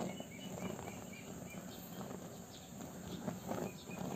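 Insect chirping in an even rhythm, about four chirps a second, over a steady outdoor background hum.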